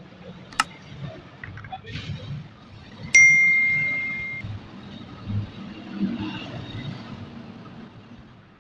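A sharp mouse-click, then about two and a half seconds later a bright bell ding that rings out and fades over a second or so: the click-and-bell sound effect of a subscribe-button animation. A low background rumble runs underneath.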